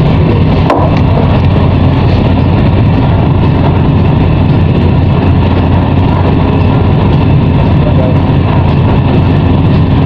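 Steady low drone of a ship's engines and machinery under way, with one short click less than a second in.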